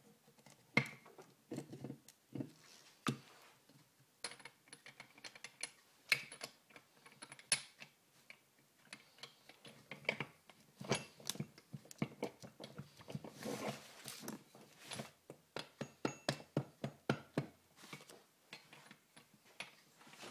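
Irregular metal clicks, clinks and knocks of parts being handled and fitted in an early Shovelhead Harley-Davidson four-speed gearbox, denser toward the middle and later part. Clothing rubs against the microphone at the start.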